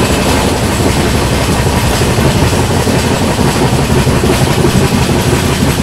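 Running noise of a passenger train heard from on board: the coach's wheels rolling over the rails with a steady, loud rumble.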